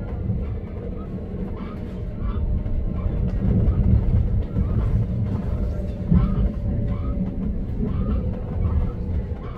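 Passenger train running between stations, heard from on board: a steady low rumble of the wheels and running gear with a faint steady whine above it.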